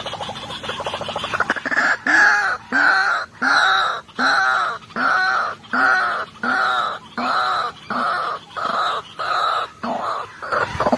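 White-breasted waterhen (dahuk) calling: a soft, rapid croaking chatter, then a long run of loud calls repeated evenly about twice a second.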